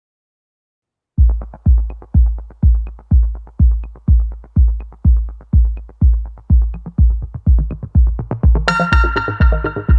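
Electronic background music: after about a second of silence a steady kick-drum beat starts at roughly two beats a second, and a synthesizer layer joins near the end.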